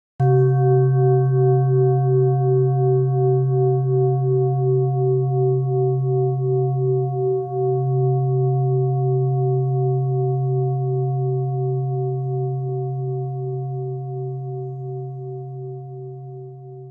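Singing bowl struck once, ringing with a low hum and several higher overtones, one of which pulses in a steady wobble; the tone slowly dies away and fades out near the end.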